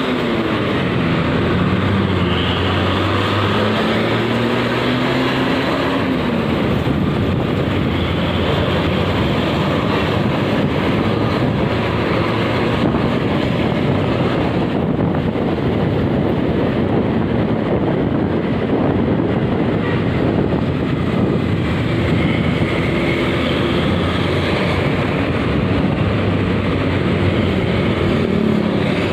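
Loud, steady rush of road and wind noise from traffic following close behind a bus, with an engine note climbing in pitch a couple of seconds in and then dropping away.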